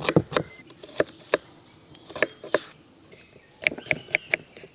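Kitchen knife chopping raw green banana on a wooden cutting board: a few sharp chops at uneven intervals, then a quicker run of lighter taps near the end.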